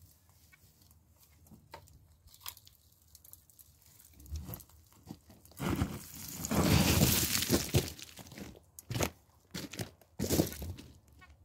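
Crunching of a shovel and boots working stony, gravelly ground, with scattered small clicks at first and the loudest, longest crunching about six seconds in, then a couple of shorter crunches near the end.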